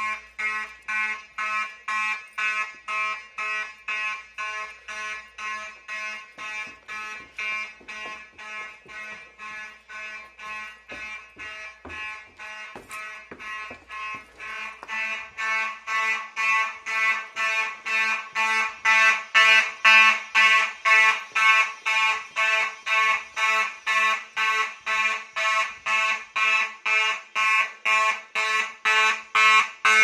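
Fire alarm horns on a Simplex 4002 system sounding in march time: a harsh pitched horn blast pulsing on and off about twice a second. It grows louder about halfway through.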